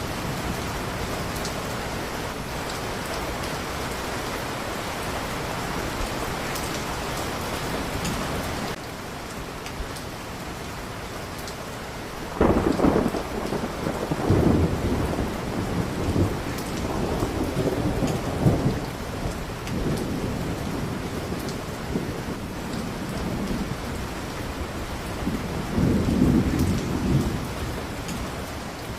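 Steady rain with the sound changing abruptly about a third of the way in, then rolling thunder rumbling over the rain in long low swells from a little before halfway, loudest in the middle and again near the end.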